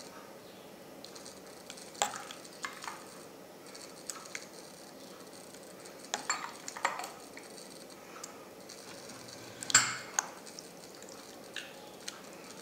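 Ladle clinking and scraping against a saucepan and glass dessert bowls while thick pudding is spooned out, a scattering of sharp knocks at irregular intervals, the loudest about ten seconds in.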